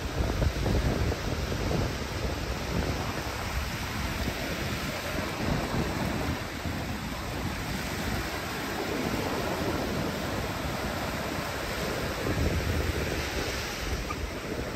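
Surf washing onto the beach in a steady hiss, with wind buffeting the microphone in low rumbling gusts.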